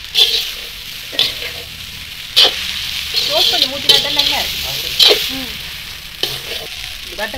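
A metal ladle stirring cooked rice and vegetables in a large metal pan, scraping against the pan about once a second, over the steady sizzle of frying.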